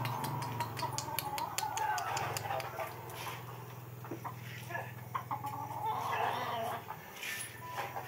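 An askal (Philippine mixed-breed) dog growling and whining as it tussles with a rooster, with scuffling clicks that are densest in the first two seconds, over a steady low hum.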